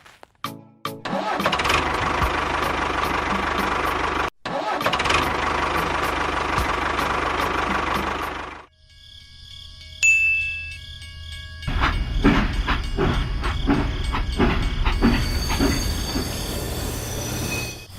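Small motors running in several edited stretches, each cut off suddenly, with a short stretch of steady tones about halfway.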